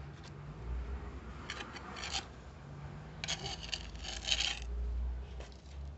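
Hands scooping and scraping a loose mix of soil, manure and bagana husk across a tiled floor and into a plastic pot: two gritty, rustling bursts, one about a second and a half in and a longer one from about three seconds in.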